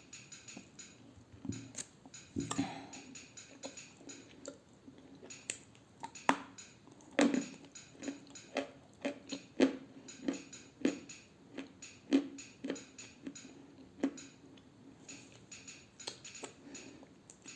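Dry edible clay being bitten and chewed close to the microphone: irregular sharp crunches, about one or two a second.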